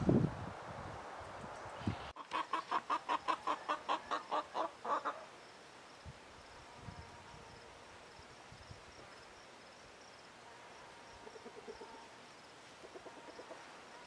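A chicken clucking in a quick run of about a dozen short calls, about five a second, for roughly three seconds, with a few fainter clucks near the end. Low rustling noise fills the first two seconds.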